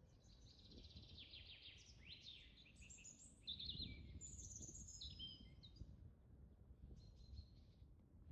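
Faint small birds chirping and trilling, several quick overlapping calls, loudest around the middle, over a low rumble of wind on the microphone.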